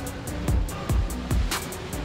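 Background music with a steady beat, about two and a half beats a second, over held notes.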